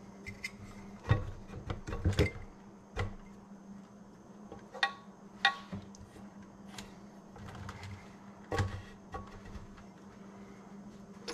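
Irregular metal knocks and clinks as a piston and connecting rod are pushed out of the bore of a Briggs & Stratton Vanguard V-twin's aluminium crankcase, about a dozen spread over the stretch, over a steady low hum.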